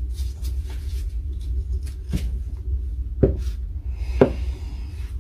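Three light knocks and clicks of small parts being handled during disassembly, over a steady low hum.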